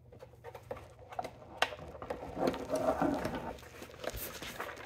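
Light plastic clicks and handling rattle from a Craftsman Versastack tool set's plastic drawer as its side release levers are pushed down and the drawer is worked outward: a few sharp clicks over the first two seconds, then a rustle of handling.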